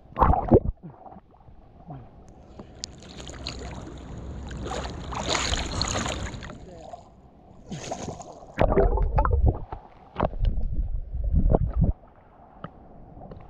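Sea water sloshing and splashing close to the microphone at the surface, with irregular knocks and heavy low rumbles as waves wash over and bump it.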